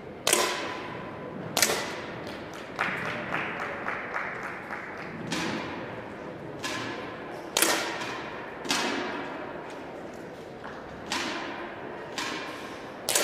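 10m air pistols firing: about a dozen sharp cracks at irregular intervals as several shooters fire in turn, each shot ringing on briefly in the hall.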